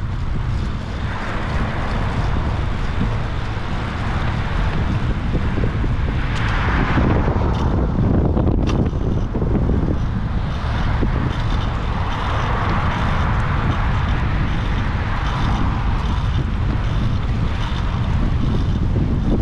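Wind buffeting a GoPro microphone on a moving bicycle, over a steady rumble of tyres on the road surface. A hiss swells and fades several times, and there is one sharp click about eight and a half seconds in.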